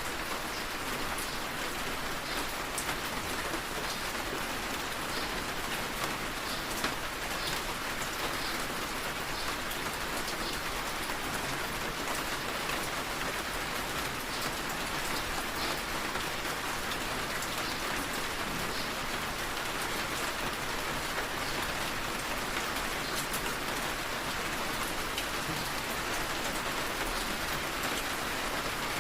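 Steady rain falling, a constant hiss with scattered individual drops tapping on a window.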